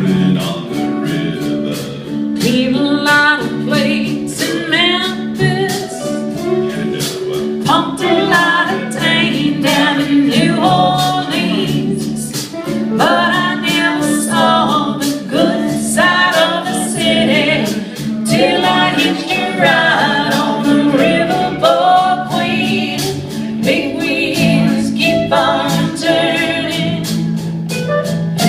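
Several voices singing together in harmony, over a beat of sharp percussive clicks.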